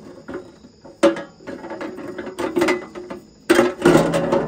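Irregular metallic clicks and clinks of hand tools and parts against a mini excavator's hydraulic control valve, becoming a louder, denser run of clicking near the end.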